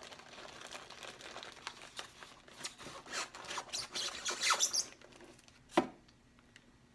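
Foam packaging inserts rubbing and squeaking against the cardboard box as they are worked loose, busiest from about two and a half to five seconds in, with one sharp squeak near six seconds, then quiet.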